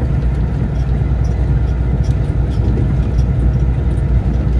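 Steady low rumble of a semi truck's engine and tyres, heard from inside the cab while cruising on the road with a loaded trailer.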